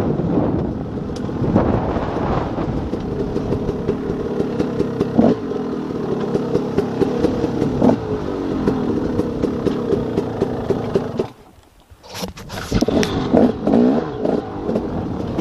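2014 KTM 300 XC-W two-stroke dirt bike engine running at low, steady revs as the bike rolls down rough trail, with knocks and rattles from the bumps. About three-quarters through the sound cuts out for under a second, then the engine comes back with short rising and falling throttle blips.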